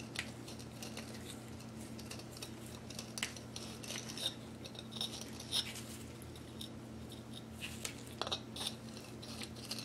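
Small hand file scraping in short, irregular strokes against a 3D-printed plastic ear cap coated in epoxy, cleaning out its centre hole. A steady low hum sits beneath.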